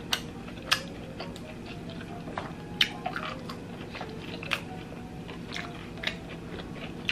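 Close-miked chewing of crispy fried chicken, with sharp crunches of the breading every second or two; the loudest come about a second in and about three seconds in.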